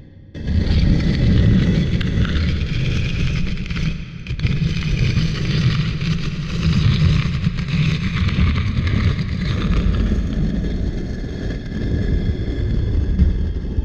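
Heavy stone slab grinding as it is dragged: a continuous low rumble with gritty scraping over it, breaking briefly about four seconds in.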